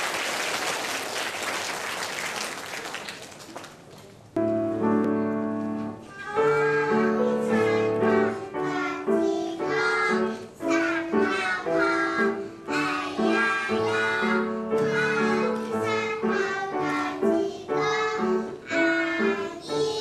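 Applause for the first four seconds or so. Then an instrumental introduction starts, and a chorus of kindergarten children sings a song with instrumental accompaniment.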